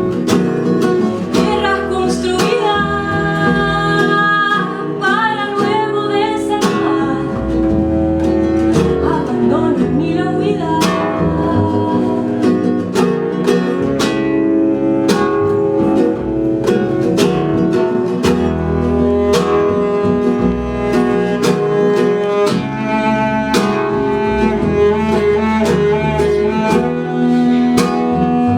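Live acoustic ensemble music: plucked guitar with bowed cello, and a voice singing with vibrato over them.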